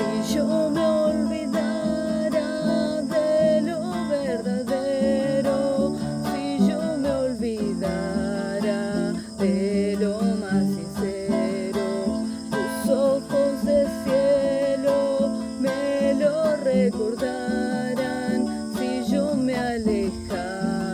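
Acoustic guitar playing an instrumental passage, plucked and strummed, with a melody that shifts and bends.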